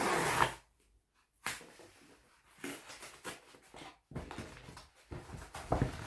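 A parcel's inner packaging being torn open and handled: a loud tearing rip at the start, then scattered rustles and crinkles.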